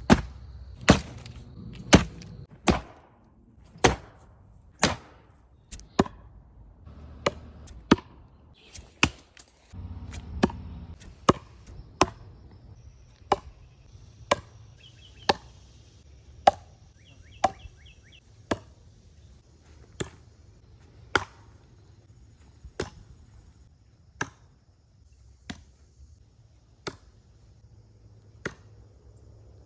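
Tomahawk chopping, its blade striking with a sharp thunk about once a second in a steady rhythm.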